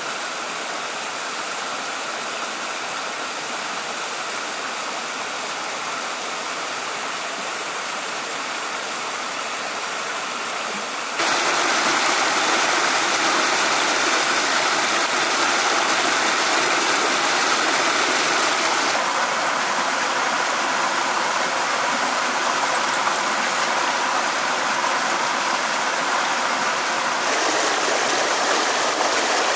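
Steady rushing of running water that jumps abruptly louder about eleven seconds in and changes again twice later.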